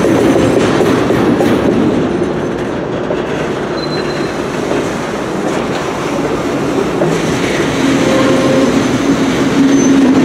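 Railroad cars loaded with piggyback trailers rolling past close by: a steady rumble of steel wheels on the rails. A faint wheel squeal comes in near the end.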